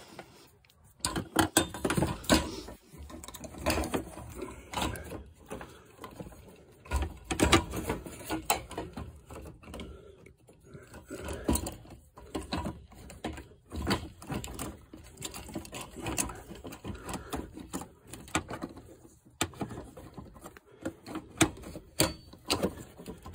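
Irregular clicks, knocks and rattles of a fuel pump module being worked by hand into its tank opening while the lock ring is fitted over it.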